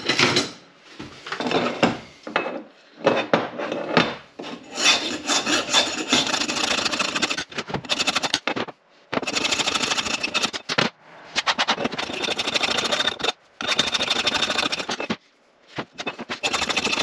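Coarse hand file rasping back and forth through the rusty eye of an old axe head, taking the rust down to clean metal. Short, separate strokes at first, then long runs of rapid strokes with brief pauses between them.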